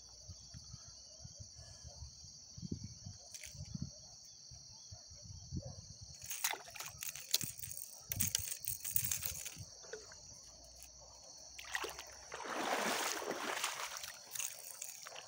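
Steady high-pitched insect chorus over the lakeside, broken by low thumps and bursts of rustling noise, the loudest near the end.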